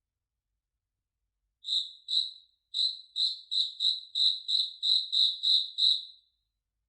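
A cricket chirping in short, high, even-pitched chirps. It starts about a second and a half in with two chirps, pauses briefly, then keeps up a steady run of about three chirps a second that stops shortly before the end.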